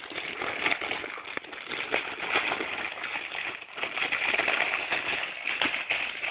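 Plastic wrapping on a package crinkling and rustling as a dog tears and worries at it with its mouth, a dense run of crackles and snaps with no break.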